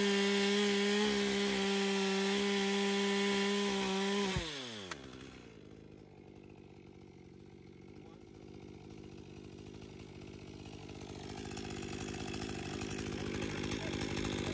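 Stihl MS 201 two-stroke chainsaw running at a steady high pitch at full throttle while cutting a fallen tree. A little over four seconds in, the throttle is released and the engine winds down quickly. A much quieter stretch follows and slowly builds again near the end.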